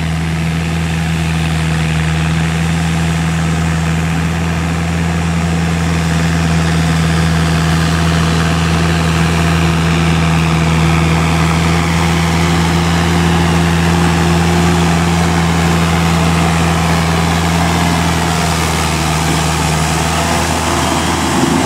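Kubota M7950DT tractor's diesel engine running steadily under load while pulling a rotary tiller through a wet rice field; it grows a little louder near the end as the tractor comes close.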